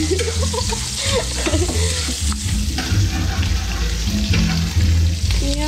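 Food sizzling as it fries in a metal wok, a metal spatula stirring and scraping against the pan, over a steady low rumble. Indistinct voices in the background during the first couple of seconds.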